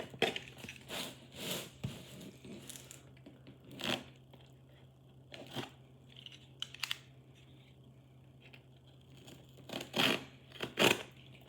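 A parcel being torn open by hand, with paper or packaging tearing and crinkling in short bursts separated by pauses, the loudest near the end; the package is hard to open.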